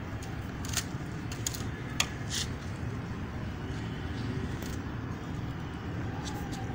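Metal spoon stirring milk and vermicelli in a steel pan, with a few short clinks and scrapes against the pan, over a steady low rumbling background.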